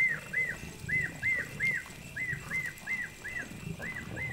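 A night animal calling over and over: short chirps that each rise and fall, about two or three a second in loose groups. Beneath them, faint low chewing and shuffling from lions feeding on a carcass.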